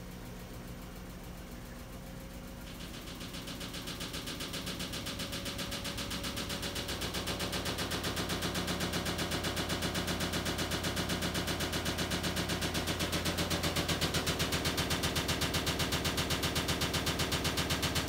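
LG front-loading washing machine ramping up into its spin, with a rapid, even knocking that grows louder for the first two-thirds as the drum speeds up, then holds steady.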